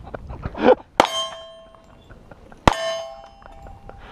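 Two pistol shots about 1.7 seconds apart. Each hits a steel silhouette target, which rings on for about a second after the strike.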